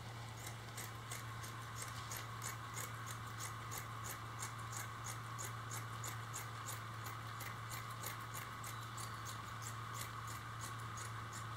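Scissors snipping through fiberglass mat: a steady run of faint, crisp cuts, about three a second.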